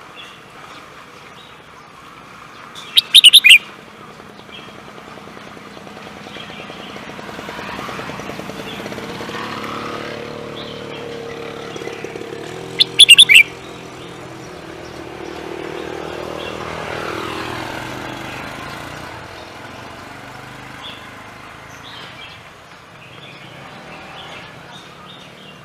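A songbird gives two short, loud bursts of high song about ten seconds apart, with traffic going by in the background, two vehicles passing.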